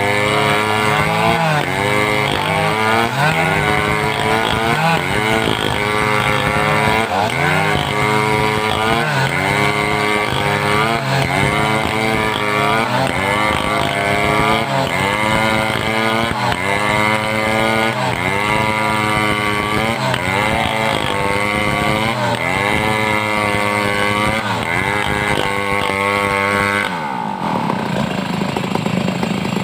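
Home-assembled two-stroke chainsaw running under load while cutting timber, its engine note dipping and recovering every second or so as the bar is worked through the wood. Near the end the engine note changes abruptly.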